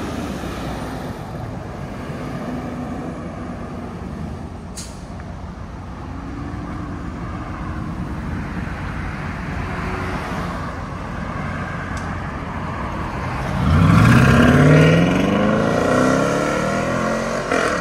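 A car's engine and exhaust running steadily at low speed, then about 13 seconds in a hard acceleration with the pitch climbing as it revs, the loudest part. A sharp click about 5 seconds in.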